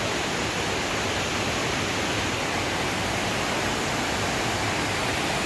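Waterfall rushing: a steady, even wash of water noise with no breaks or changes.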